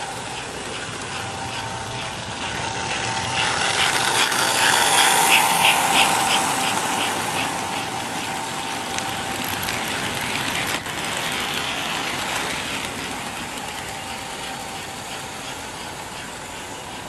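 American Flyer S-gauge toy train running on its track, the cars rolling past with a steady rumble and whir. It grows louder a few seconds in as the cars pass close, with the wheels clicking over the track joints about three times a second, then eases off.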